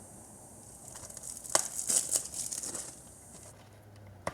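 DVD box-set packaging crinkling and rustling as it is handled, with a few sharp clicks, for about two seconds in the middle. A single sharp click comes at the very end.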